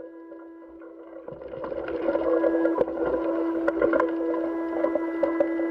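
Audio from a spacewalk helmet camera: a steady mechanical hum with higher overtones, joined from about a second in by a rough rushing noise that swells and carries scattered sharp clicks and knocks.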